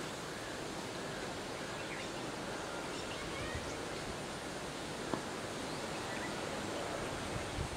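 Steady outdoor background noise with faint bird chirps, and one light tick about five seconds in.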